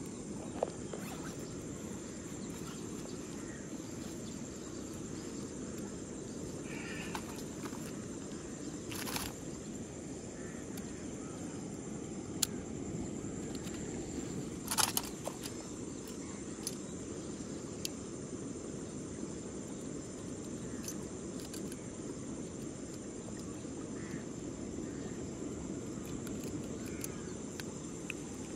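Steady outdoor ambience: a low rumbling noise under a thin, steady high drone of insects, broken by a few short sharp clicks and rustles as a hooked snakehead is unhooked by hand in the grass.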